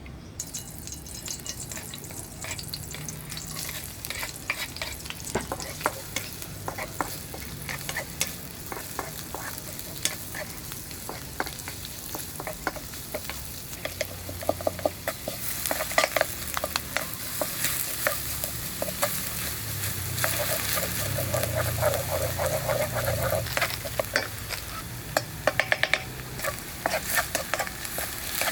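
Fish frying in hot oil in a pan: a steady sizzle full of crackles and pops, with the stirring of a utensil in the pan. The crackling grows louder and busier about halfway through.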